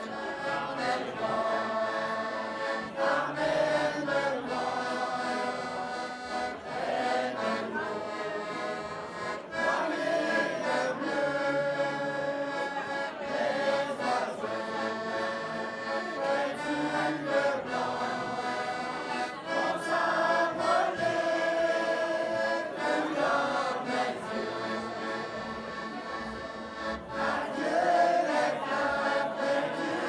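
A small mixed choir singing a song in unison, accompanied by an accordion playing sustained chords and melody under the voices.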